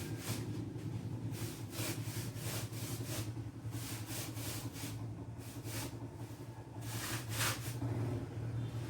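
Repeated short rubbing strokes in irregular clusters over a steady low hum.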